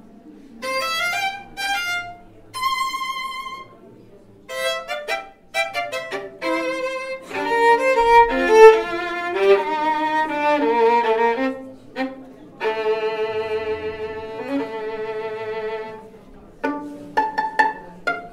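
Solo violin improvising in short phrases of quick notes with brief pauses between them. Around the middle it holds one long note with vibrato, and near the end it plays a few short, sharply attacked notes.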